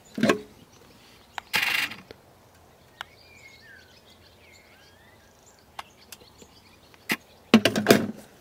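Steel door of an Ooni Fyra pizza oven being taken off with a short scraping clunk, then another noisy handling sound about a second and a half in. Near the end the door is fitted back on with a quick run of metal knocks and scrapes. Faint birdsong chirps in between.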